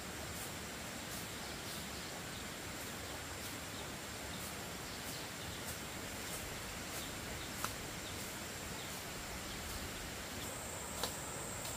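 Steady outdoor background ambience: a continuous high hiss with a faint, evenly repeating high tick a little under twice a second. Two short light clicks come in the second half.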